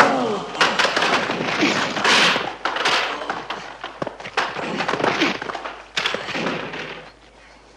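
Kung fu film fight soundtrack: a string of thuds and crashes as a fighter is knocked down into folding chairs, with short shouts among them, dying away near the end.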